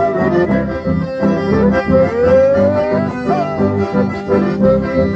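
Live folk dance music led by button accordions playing the melody over electric bass, with a steady rhythmic pulse.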